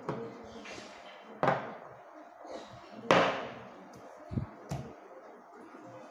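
Small paint jars set down on a wooden tabletop: a few sharp knocks, the loudest about three seconds in, with soft brushing of the hand and paper between them.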